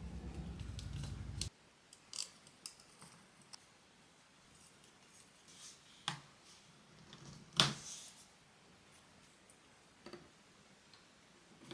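A low hum that cuts off suddenly about a second and a half in, then a few sharp clicks and snips of small hand work on parts.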